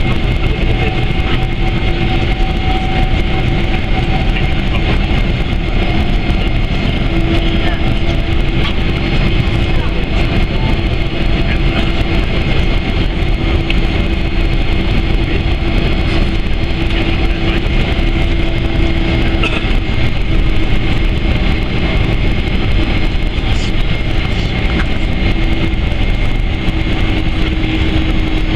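Steady cabin noise of a Boeing 767-300ER taxiing, its jet engines running at low taxi power with a constant hum and steady whine through the airframe.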